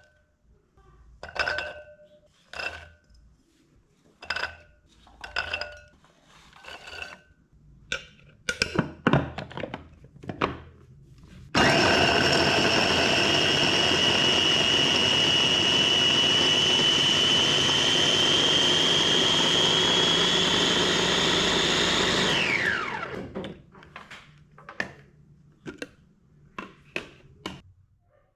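Electric blender running for about ten seconds, its motor whine creeping slightly higher, then spinning down with a falling pitch when switched off. Before and after it come a series of light knocks and clinks.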